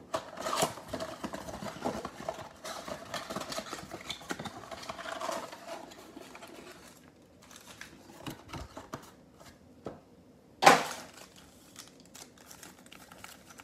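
Cardboard box flap opened, then foil-wrapped trading card packs rustling and crinkling as they are pulled out of the box and stacked on a table. The handling is busiest in the first half and quieter after that, with one louder short sound about ten and a half seconds in.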